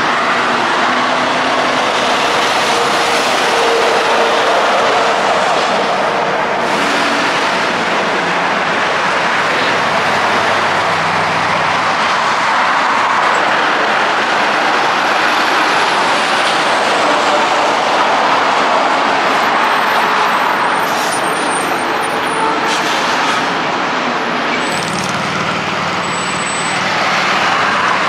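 Busy highway traffic: semi-trucks and cars passing, with diesel engines and tyre noise going on continuously. About 25 seconds in, a heavy truck's engine grows louder close by.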